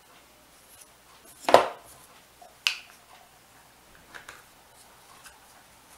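Two sharp clicks of hard plastic as a drawing tablet's pen stand is handled and closed, the first about one and a half seconds in and the louder, the second about a second later, followed by a few faint ticks.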